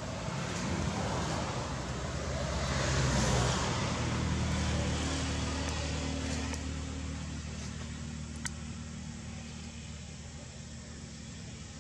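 A motor vehicle driving past: engine hum and road noise swell to a peak about three seconds in, then slowly fade away.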